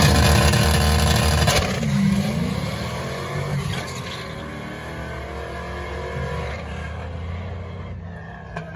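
Two Fox-body Ford Mustang drag cars at full throttle, running hard down the strip after the launch. Their engines climb in pitch through the gears, with a shift about two seconds in, and fade steadily as the cars pull away.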